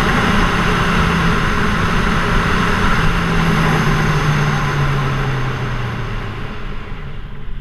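Kawasaki Z1000SX's inline-four engine running at road speed, with wind noise rushing over the microphone. About five seconds in the engine note drops lower as the bike slows, and the sound fades out near the end.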